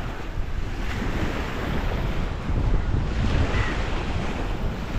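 Wind buffeting the microphone, with small waves breaking and washing onto the shore.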